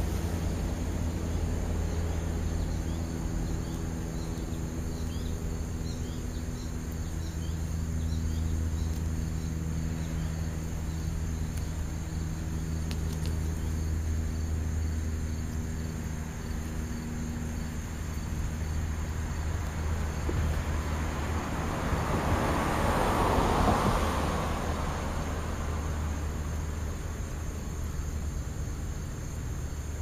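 Outdoor background: a steady low hum, with a vehicle passing that swells and fades about 21 to 25 seconds in. Faint insect chirps come in over the first several seconds.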